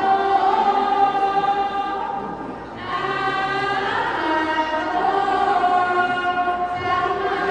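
Sorapan, the Isan Buddhist devotional chant: women's voices singing a verse together in long held notes that bend slowly in pitch, with a brief break for breath about a third of the way in.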